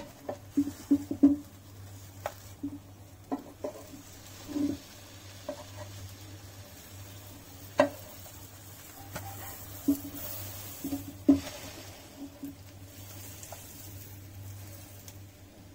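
A wooden spatula taps, knocks and scrapes irregularly on a non-stick pan as pav buns are turned to toast the other side. Faint butter sizzling and a low steady hum run underneath.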